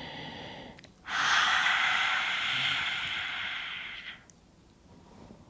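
A woman doing the lion's breath (simhasana) yoga exercise: a softer inhale, then about a second in a forceful open-mouthed exhale with the tongue stuck out, a long breathy 'haaa' of about three seconds that fades out.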